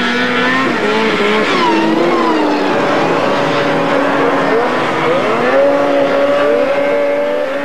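Several racing snowmobiles' two-stroke engines revving hard at once, their pitches rising and falling as the sleds accelerate and ease off over the snowcross course.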